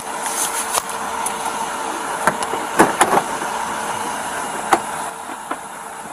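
Steady hum of idling vehicles, with a few sharp clicks and knocks as the Dodge Durango's driver door is unlatched and opened.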